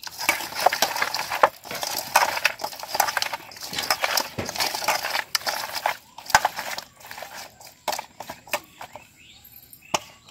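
Raw chicken pieces being mixed by hand in a steel colander, working in a marinade of salt, turmeric and mustard oil: a dense run of quick, irregular wet knocks and rustles that thins out after about six seconds to a few scattered clicks.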